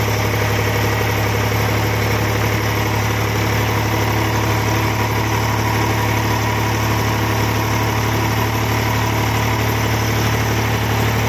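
Tractor's diesel engine running at a steady speed while driving, heard up close from the driver's seat: a loud, even low drone that does not change in pitch or level.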